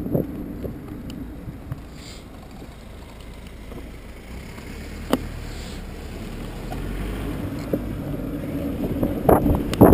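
Wind buffeting a handlebar-mounted GoPro Hero 2 on a moving bicycle. It drops low as the bike slows through a junction and rises again in loud gusts near the end as speed picks up. A low traffic rumble sits underneath in the middle, with one sharp click about five seconds in.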